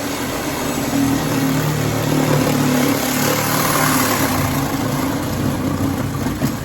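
A motor vehicle engine running loudly with a steady hum over a broad rush of noise, starting and stopping abruptly.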